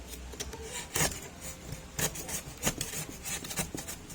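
A sharp knife blade cutting and scraping along the edge of resin-stiffened carbon fibre cloth, trimming off the excess in a series of short rasping strokes, roughly one a second.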